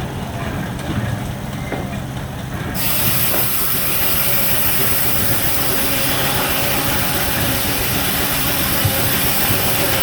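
Case steam engine running steadily, and about three seconds in a loud hiss of escaping steam starts and holds.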